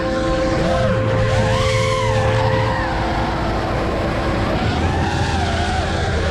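Electric motors of an FPV freestyle quadcopter whining, the pitch swooping up and down again and again as the throttle is worked, over steady held music notes.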